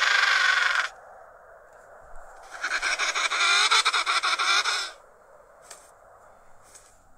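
Emperor penguin calls played by Google's 3D augmented-reality penguin model. One call ends about a second in, and a longer, rapidly pulsing call runs from about two and a half to five seconds in.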